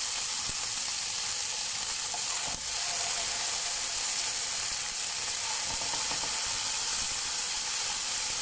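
Marinated beef fillet searing in hot oil in a frying pan, a steady sizzle.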